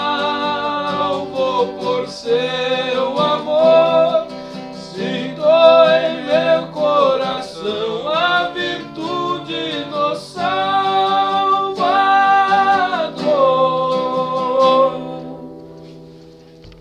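Men singing a hymn to a strummed acoustic guitar, closing on a long held final note as the last chord rings out and fades about two seconds before the end.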